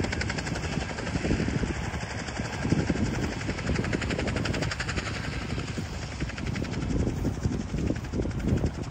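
Wind buffeting the microphone with an uneven low rumble, over a steady fast pulsing buzz in the background.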